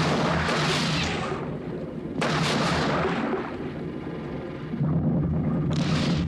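Three sudden muffled blasts of rushing bubble noise, one at the start, one about two seconds in and one near the end, each fading over about a second, over a steady low hum: film sound effects for the bubble-spewing underwater sleds.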